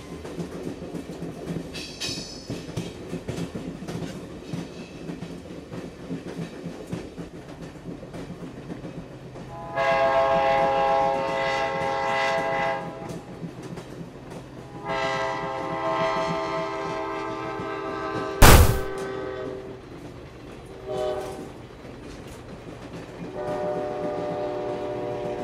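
Train horn sounding in three long blasts over the steady rumble and clatter of a running train. A single sharp, loud knock breaks in about two-thirds of the way through.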